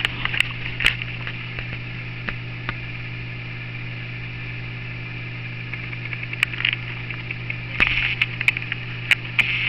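Steady low electrical hum with a constant hiss, broken by scattered light clicks about a second in and again in a cluster near the end.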